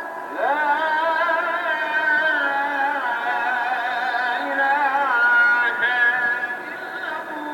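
A single voice singing a long, ornamented line, sliding into and wavering on held notes, with the first note entering on a rising glide.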